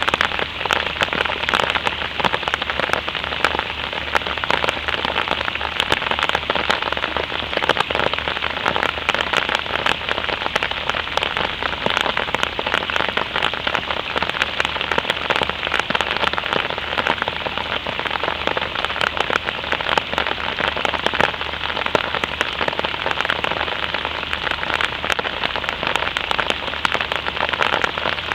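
Light rain falling: a steady, dense patter of drops.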